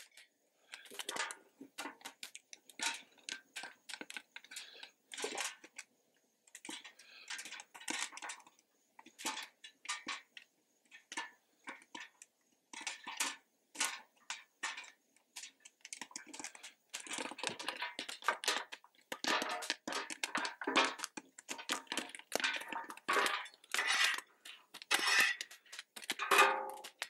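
Popcorn kernels popping in hot oil on a Blackstone flat-top griddle under its metal cover: sharp, irregular pops. They are scattered at first and turn dense and rapid about halfway through.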